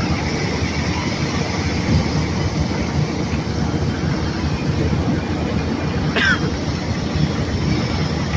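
Crushed rock cargo sliding and pouring down through an opening in a barge's hold during unloading: a steady, dense rattling rush. A brief high squeal slides down in pitch about six seconds in.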